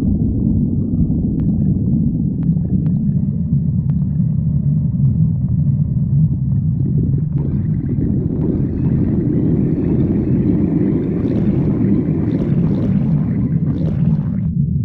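A person's stomach growling: a steady low rumble throughout, joined about halfway through by higher gurgling that stops shortly before the end.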